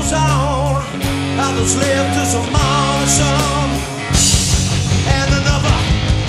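Live rock band playing: drum kit, bass and electric guitars, with a wavering lead melody over sustained bass notes. About four seconds in, the drums switch to a busier run of hits with cymbals.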